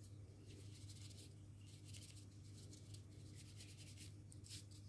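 Faint, irregular brushing strokes on paper: dark ink being worked onto the edges of a card with a blending tool, over a steady low hum.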